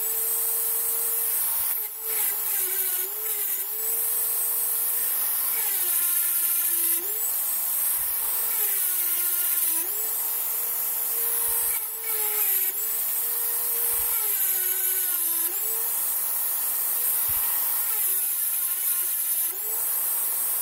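Dremel rotary tool with a small grinding bit grinding the hardened steel of an old Colt Single Action Army revolver's hammer. The motor's high whine sags in pitch every two to three seconds as the bit bears into the steel, then climbs back as it eases off.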